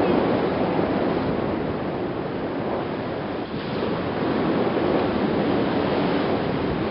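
Steady rush of rough sea and wind, with wind buffeting the microphone.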